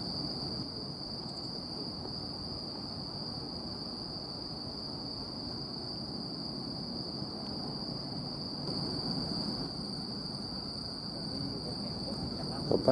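A chorus of crickets singing as one steady high-pitched note, over a low background rumble.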